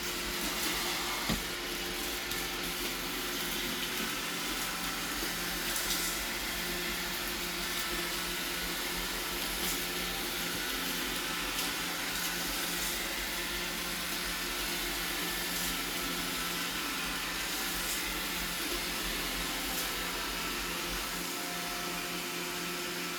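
Robot vacuum cleaner running in spot-cleaning mode: a steady motor and brush hum with several fixed whining tones over a rushing suction noise, and one sharp click about a second in.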